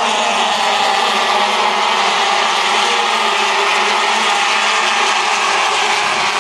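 Racing motorcycle engines running hard at high revs as a pack of bikes goes past, a loud, steady, unbroken blend of engine noise.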